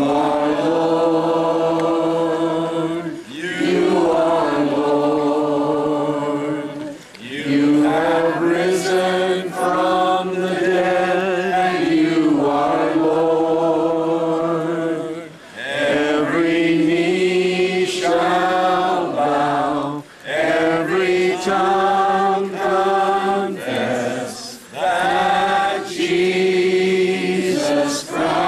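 A group of people singing a slow worship chorus together, with long held notes and brief pauses between phrases.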